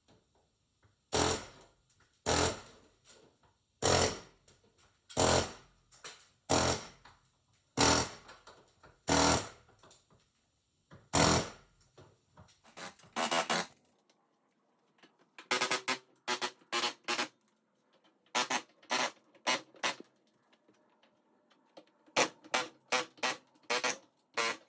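Pneumatic air hammer (rivet buster) hammering out a school bus's body rivets in short bursts, one about every second and a half at first, then shorter, quicker bursts in clusters.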